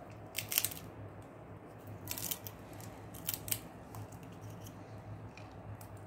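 Indian ringneck parakeet cracking and nibbling a peanut with its beak: sharp crunching clicks in three short clusters, about half a second in, around two seconds and around three and a half seconds, with fainter nibbles after.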